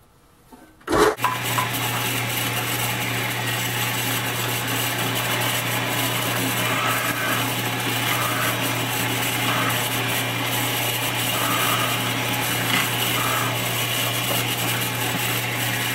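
Drill press switched on about a second in, its motor running with a steady hum while a 5/16-inch bit bores into the end of a wooden pedal block.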